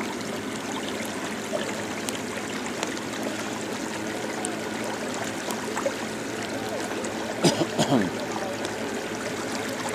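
Steady hiss of rain falling on the river and the boat, mixed with water washing along the boat's side, with faint scattered drop ticks. A short burst of a voice cuts in about three-quarters of the way through.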